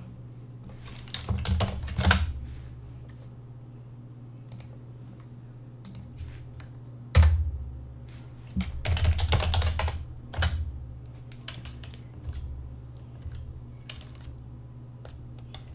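Typing on a computer keyboard in short bursts of keystrokes, with one sharper, louder keystroke about seven seconds in, over a steady low hum.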